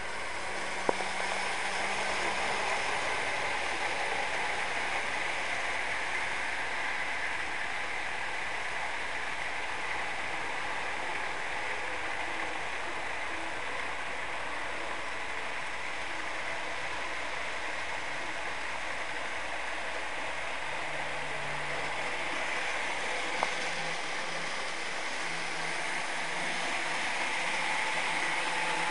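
Model trains running on layout track: a steady mechanical whir of locomotive motors, gears and wheels on the rails, with a faint low hum that comes and goes and two sharp clicks, about a second in and again near the end.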